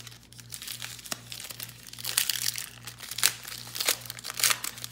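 Foil wrapper of a Panini Prestige football card pack crinkling and tearing as it is worked open by hand, in irregular crackles with a few sharper rips.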